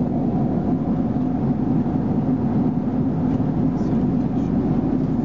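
Airliner cabin noise in flight: a steady, even rushing drone from the engines and air flow.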